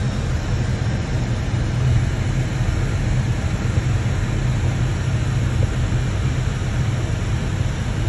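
Steady low roar of airflow and engines inside an Airbus A320-family airliner's cockpit during descent on approach, unchanging throughout.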